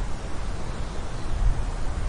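Steady outdoor noise: wind rumbling on the microphone under an even hiss, with no bird calls.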